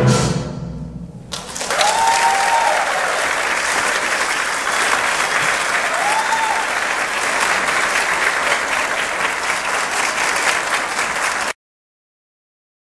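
An orchestra's last chord rings out and dies away, then the audience applauds steadily, with two short whistles, a couple of seconds in and again about six seconds in. The applause cuts off abruptly near the end.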